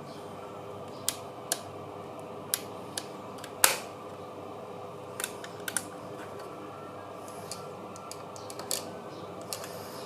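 Irregular sharp clicks and taps of small hard parts being handled, the loudest about three and a half seconds in, over a steady background hum.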